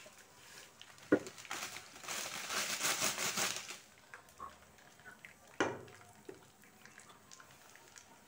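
A plastic packet crinkling and dry vermicelli rustling as the noodles are poured into a wok, for about three seconds. Two sharp knocks stand out, one about a second in and a louder one past the middle.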